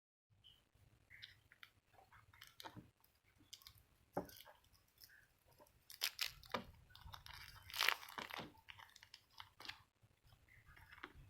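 Plastic packaging crinkling and tearing, with scattered small clicks and knocks as a sausage is unwrapped and handled for cutting; two louder crackly rustles come about six and eight seconds in.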